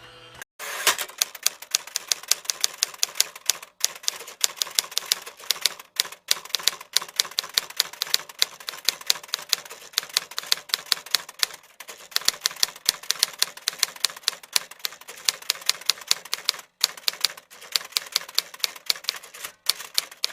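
Typewriter keys struck in a rapid, uneven run of sharp clacks, several a second, broken by a few brief pauses.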